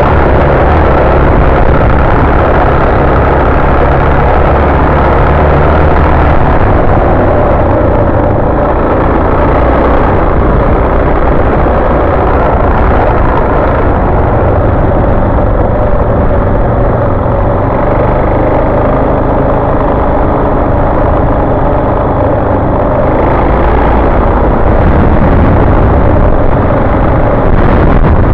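Suzuki DR-Z400 dual-sport motorcycle's single-cylinder engine running while riding along, mixed with loud wind rumble on the microphone.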